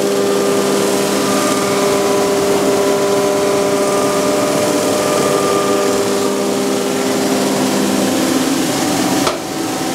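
Surface grinder resurfacing the deck of a Cummins 5.9 diesel engine block: the grinding wheel cuts the cast iron flat with a steady hum and a high hiss. Near the end there is a click and a brief dip in level.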